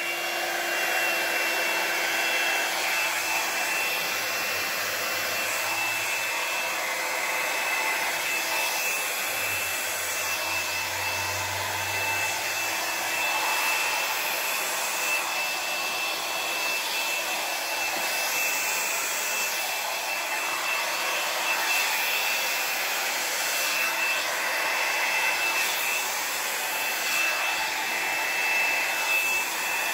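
Handheld hair dryer running steadily: an even rush of air with a steady high whine from the motor as it blows wet acrylic paint across the panel.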